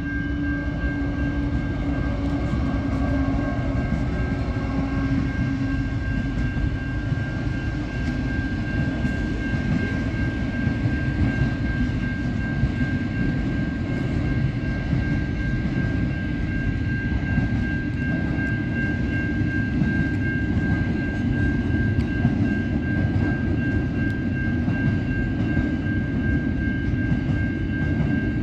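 Pacific National NR-class diesel locomotive and its freight wagons rolling through a level crossing: a steady, heavy rumble of wheels on rail. Over it runs a constant high ringing tone from the crossing's warning bell.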